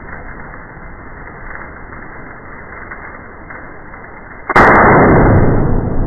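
A single AR-15 rifle shot about four and a half seconds in, fired through a cosmetic fake suppressor that does not muffle it: a sharp crack followed by loud lingering noise that carries on to the end.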